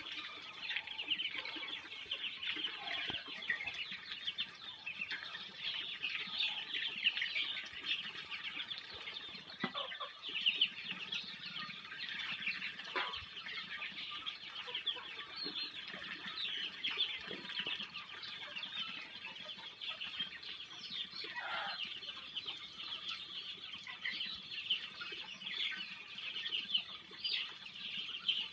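A large flock of 12-day-old Muscovy ducklings peeping nonstop, many high calls overlapping into a continuous chorus.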